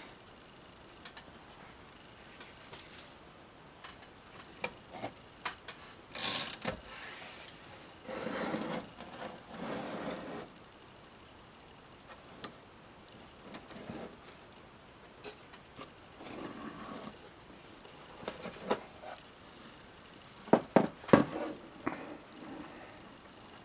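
1951 Royal Quiet De Luxe manual portable typewriter being worked between bouts of typing: scattered single clicks, two longer rubbing, rasping stretches about eight to ten seconds in, and a quick run of loud clacks near the end.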